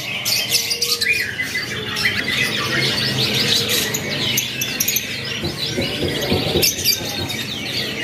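A chorus of many caged birds, canaries among them, chirping and trilling rapidly and overlapping without pause.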